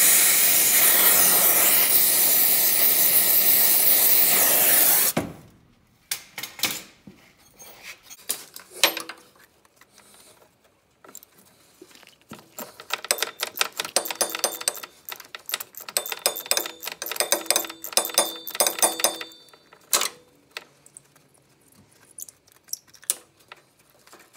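Gas torch flame hissing loudly for about five seconds as it heats rusted exhaust manifold studs to free the seized nuts, then cutting off suddenly. Scattered metal clicks follow, then several seconds of rapid metallic clicking from a ratchet wrench turning the heated nuts off the studs.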